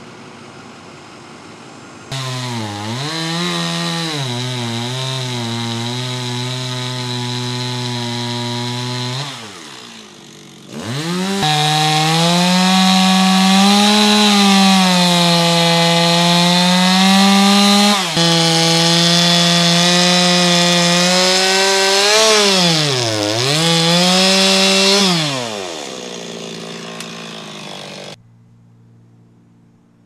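Gas chainsaw cutting through an ash trunk near the ground, running in two long spells, the second louder; its engine pitch dips and recovers as the chain bites into the wood. It winds down and stops near the end.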